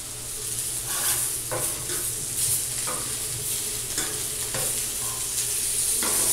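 Boiled potatoes and vegetables sizzling in butter on a flat-top griddle, with a steady hiss. A metal spatula and fork scrape and tap on the griddle plate every half second to a second as the pieces are turned.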